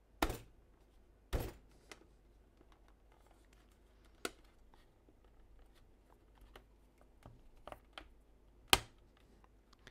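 Apple Time Capsule end cap being pressed back onto its case by hand: a few sharp clicks and knocks of plastic, the loudest near the end, with faint handling ticks in between.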